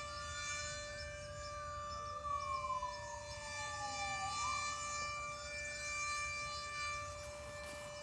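Super Sirex outdoor warning siren sounding a steady alert tone, its rotator broken. A police car siren wails in the background, slowly rising and falling twice.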